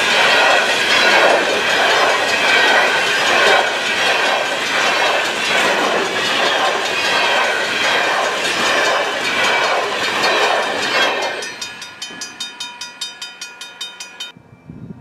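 Empty covered hopper cars rolling past close by, their steel wheels clacking in a steady beat under a loud rattling din. About eleven seconds in the noise drops away to a fainter, even clicking of wheels at about four a second as the train moves off, and this cuts off shortly before the end.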